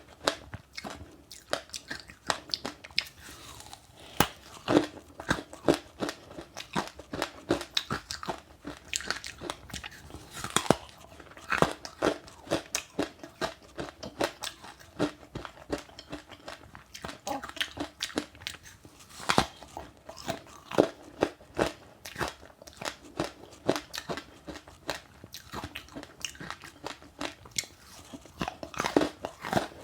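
Close-up chewing and biting of crunchy passionfruit with sesame seeds: a dense, irregular run of sharp crunches as the seeds break between the teeth.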